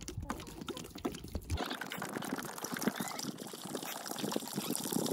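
Water pouring from a plastic one-gallon milk jug into a rubber chicken-water tub, splashing steadily as the nearly empty tub fills.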